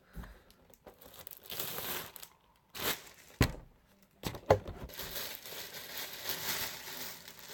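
Plastic packaging crinkling and tearing as a headset is pulled out of its box, with a couple of sharp clicks about halfway through and steady rustling after.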